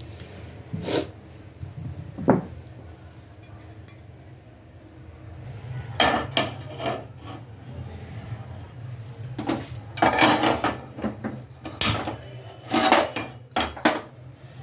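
Kitchen utensils clattering: irregular clinks and knocks of pots, lids and spoons in several short clusters, over a steady low hum.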